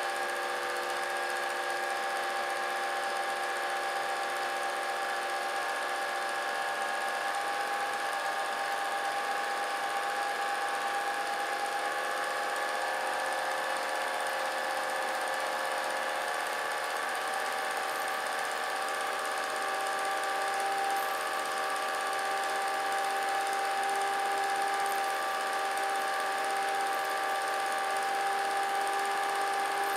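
Vintage film projector running: a steady mechanical whir with several steady tones whose pitch drifts slightly.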